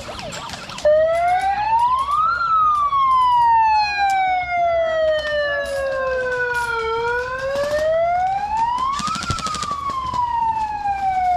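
Siren winding up and down in long slow sweeps, twice, signalling the end of an airsoft game.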